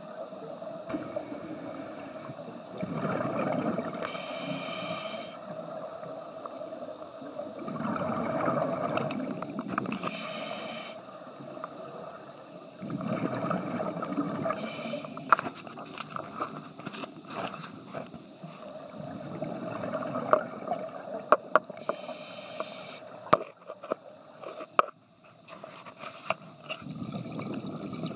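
A scuba diver breathing through a regulator underwater: a hiss from the demand valve and a rush of exhaled bubbles, repeating about every five seconds for some five breaths. A few sharp clicks come in the second half.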